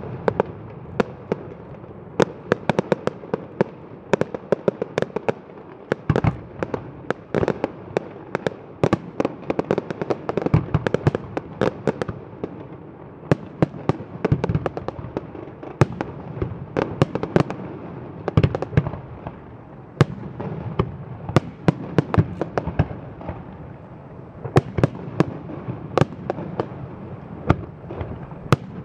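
Fireworks display: aerial shells bursting in a rapid, continuous barrage of sharp bangs, several a second, over a steady rumble of smaller bursts.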